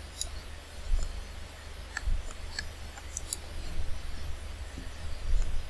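A few separate computer mouse clicks over a steady low hum.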